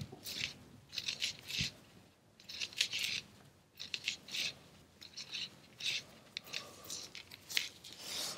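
Fishing line rubbing and sliding through fingers as a uni knot is tied: short, soft, scratchy swishes that come and go irregularly.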